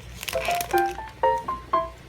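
Background music: a light melody of short ringing notes, about two a second, starting a moment after a brief lull.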